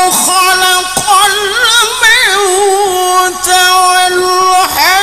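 A man's voice reciting the Quran in melodic tilawah style through a microphone and PA. He holds long high notes with wavering ornaments, with short breaks between phrases about a second in and again near the end.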